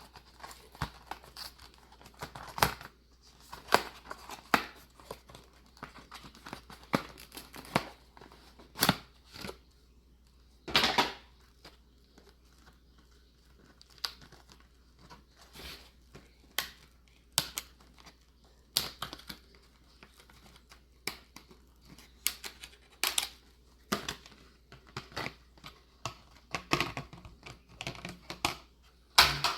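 Plastic packaging of RAM memory sticks being opened and handled: irregular crackles and clicks, some sharp, with short quiet gaps between them.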